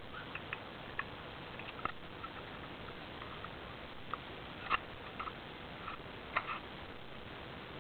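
Pet parrot on a rope perch making scattered soft clicks and ticks with its beak and feet. The two loudest come about two thirds of the way in, over a faint steady hiss.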